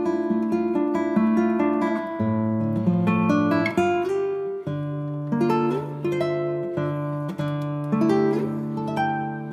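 Background music: acoustic guitar playing a plucked, picked melody over sustained bass notes.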